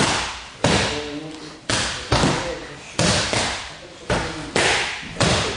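Strikes smacking a handheld focus mitt: about eight sharp smacks at uneven intervals, each trailing off with a short echo.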